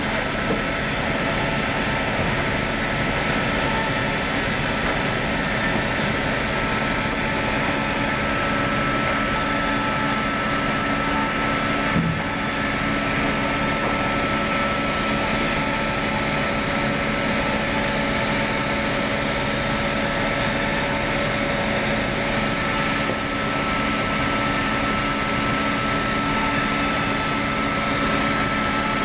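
Circular-blade log sawmill running steadily: its motor and spinning saw blades give a constant hum with a steady high-pitched tone over it. A single sharp knock comes about twelve seconds in.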